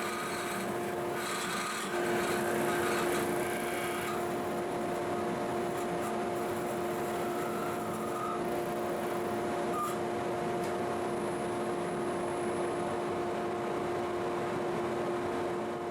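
Wood lathe running with a steady motor hum while a 3/8-inch D-Way beading tool cuts beads into spinning Osage orange; the cutting noise is busiest in the first few seconds.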